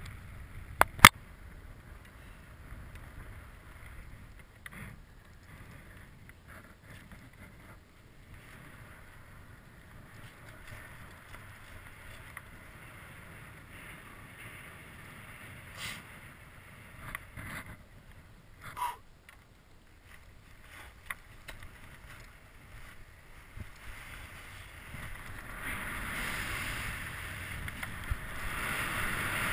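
Skis running through off-piste snow, a steady hiss that grows louder in the last few seconds. A few sharp knocks cut through it, the loudest about a second in.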